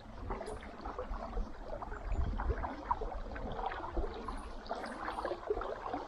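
Water splashing and trickling close by in many small irregular bursts, over a low rumble.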